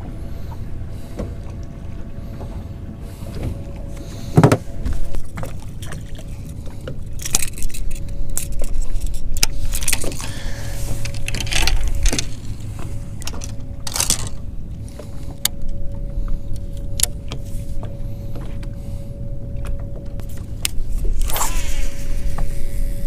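Bass boat's electric trolling motor humming with a steady thin whine over wind and water rumble, with scattered knocks and clatters of footsteps and gear on the boat deck. Near the end a rod is cast with a swishing whoosh.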